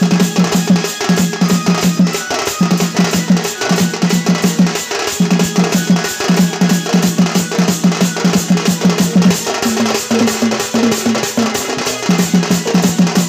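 Live Sambalpuri folk drumming on a dhol, a double-headed barrel drum, played in a fast, steady rhythm with a low pitched figure repeated in short phrases that shifts higher about ten seconds in and drops back near the end.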